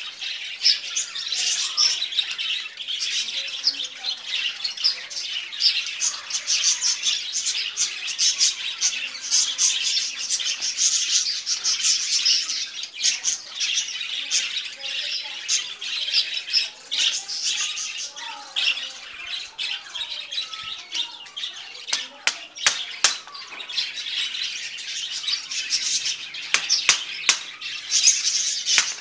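Many small birds chirping and twittering continuously in quick, overlapping calls, with a run of sharp clicks in the last several seconds.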